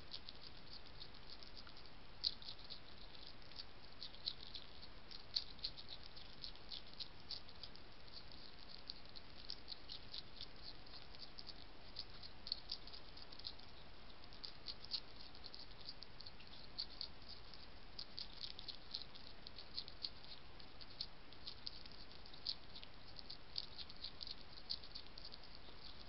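European hedgehog chewing and crunching food, a run of irregular crisp clicks several times a second over a steady faint hiss.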